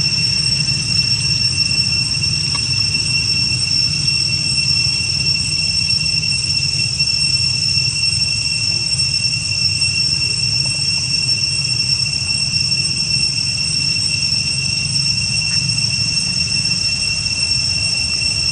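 Steady high-pitched insect drone, one unbroken tone with a fainter one an octave above, over a low rumble.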